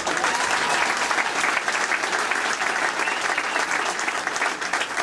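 Crowd applauding: dense, steady clapping that breaks out all at once.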